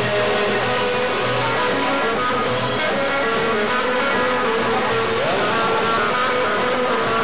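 Live Middle Eastern folk band playing a dance tune: bowed violin and plucked oud and long-necked lute carry the melody over a steady hand-drum beat.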